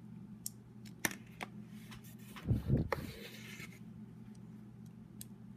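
Small sharp clicks and rubbing of plastic LEGO pieces being handled as an eyeball piece is pressed onto a brick model, with a soft handling thump about two and a half seconds in. A faint steady low hum runs underneath.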